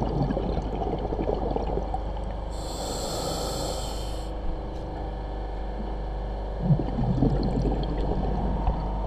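Scuba diver breathing through a regulator underwater. Exhaled bubbles rumble at the start, a hissing inhalation through the regulator comes about three seconds in, and another burst of exhaled bubbles follows near the end.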